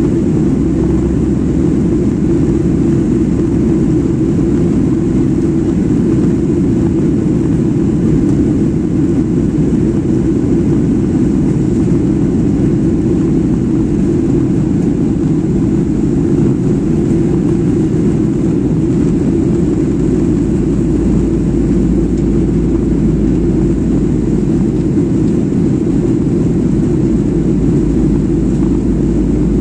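Jet airliner cabin noise: a steady, even low rumble of engines and airflow heard from inside the passenger cabin.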